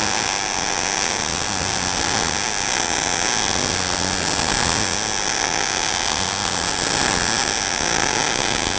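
MIG welding arc from an ESAB Rebel 235 in sMIG mode, running steadily at about 100 amps and 18 volts on an uphill fill pass in a groove joint. The wire stickout has been lengthened, and the machine is raising its voltage to compensate.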